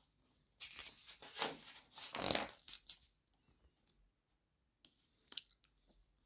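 Glossy magazine pages being turned by hand: paper rustling and sliding, loudest about two seconds in, with a few lighter rustles near the end.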